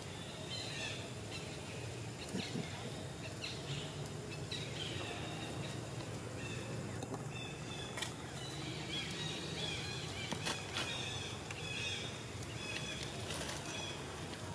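Outdoor woodland ambience: a steady low rumble with scattered short high chirps and a few sharp clicks.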